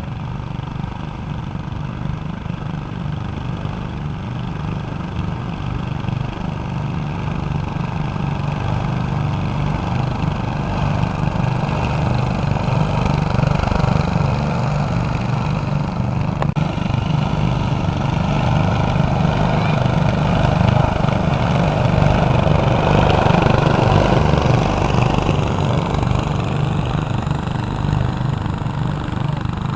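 Lawn tractor fitted with four small engines running steadily as it drives. It grows louder through the middle and eases off a little near the end.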